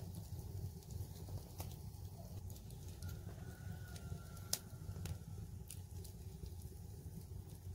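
Wood fire crackling, with a few sharp irregular pops over a low steady rumble; the loudest pop comes about four and a half seconds in.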